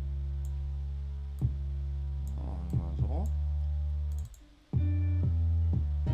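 Deep 808 bass line playing back from a DAW: long sustained low notes with sharp attacks and short pitch glides between some of them. It drops out for about half a second a little over four seconds in, then a new low note comes in. Light mouse clicks sound over it.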